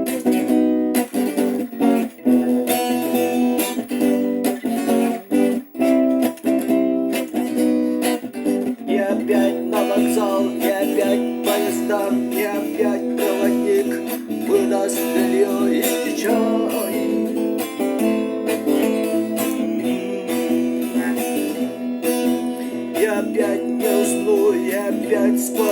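Acoustic guitar strummed in a steady rhythm, playing the song's chords.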